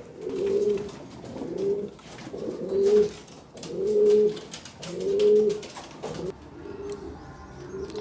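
Domestic pigeons cooing in a loft: a low coo repeated about every second, five times clearly, then softer coos near the end, with light clicks and scrapes from the birds.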